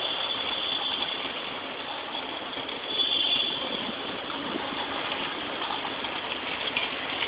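Steady street-traffic noise with the running of the slow-moving car it is heard from, slightly louder about three seconds in.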